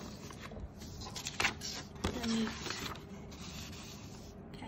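Sheets of paper sliding and rustling against each other on a table, with a few light taps as the paper is moved.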